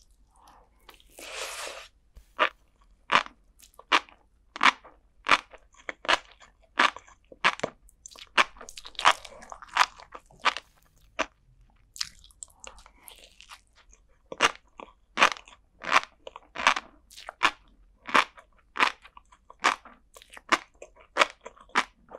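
Close-miked chewing of flying fish roe and sea grapes: a steady run of crisp pops and crunches, about one to two a second, as the little eggs and grape-like beads burst between the teeth.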